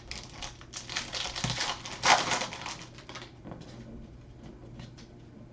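Crackling rustle of a foil trading-card pack wrapper being torn and crumpled, loudest about two seconds in, then a few light clicks of cards being handled.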